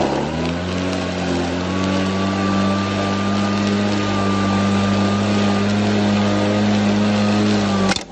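Atlas 80V cordless lawn mower's electric motor and blade running under load while mowing in slow (turtle) drive mode: a steady hum that dips and comes back up in pitch in the first second, then holds even. Near the end there is a click and the level drops suddenly.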